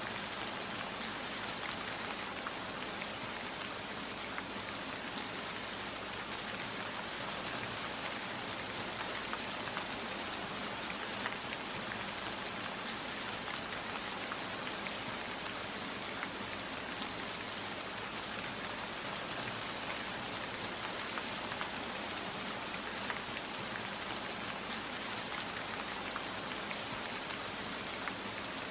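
Wood fire burning in a fireplace: a steady, dense crackle of small pops and ticks, with an occasional louder snap.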